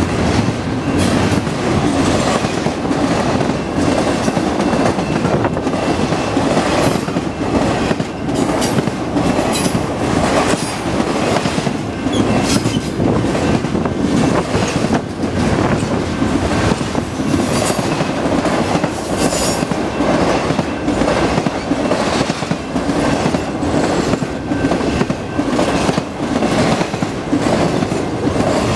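Double-stack intermodal container freight train rolling past at close range: a steady, loud rumble of steel wheels on the rails, broken by irregular clicks and knocks as the cars' wheels cross the rail joints.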